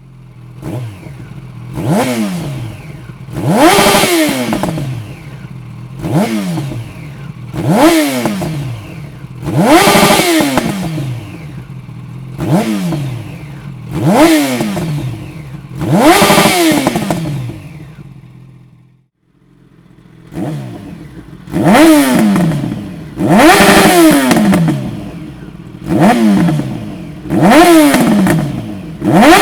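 Yamaha FZ1 Fazer inline-four with an aftermarket Dominator exhaust silencer, free-revved in a series of sharp throttle blips about every two seconds. Each blip climbs quickly in pitch and falls back to idle. There is a brief break about two-thirds of the way through, then the blips resume.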